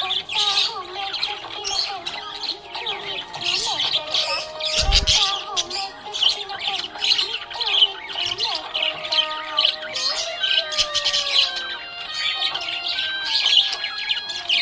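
Budgerigars chirping and warbling in a dense, continuous stream of short calls and pitch glides. There is a brief low thump about five seconds in.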